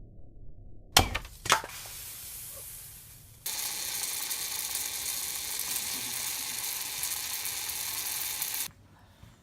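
Two sledgehammer blows on an aerosol can of whipped cream, about a second in and half a second apart. Then the burst can sprays gas and cream out in a loud, steady hiss for about five seconds, which cuts off suddenly.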